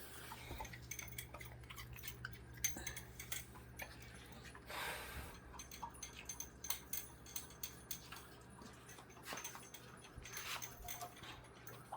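A dog eating apple pieces from a bowl: faint, irregular light clicks and clinks, with a brief rustle about five seconds in.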